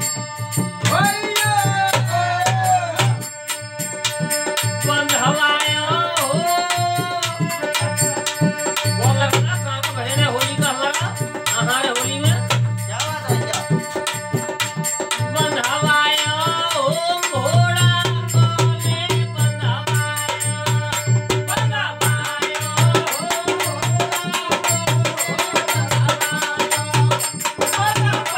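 Rajasthani Holi folk song: a man singing over a harmonium's held chords, with a dholak drum beating a steady rhythm throughout.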